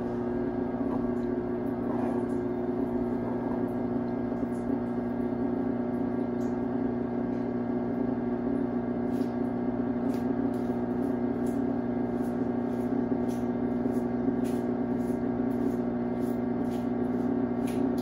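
Electrolux LB12Q top-load washing machine running with a steady mechanical hum, its basket spinning and then coming to a stop before the rinse fill. From about halfway, a light click repeats roughly once a second over the hum.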